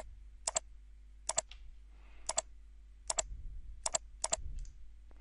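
Computer mouse clicking, about eight short clicks at irregular intervals of half a second to a second, faint over a low steady hum.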